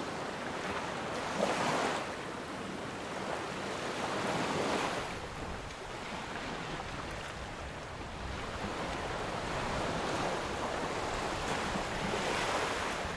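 Sea water washing along the hull of a sailboat under sail, a steady rush that swells into louder surges a few times.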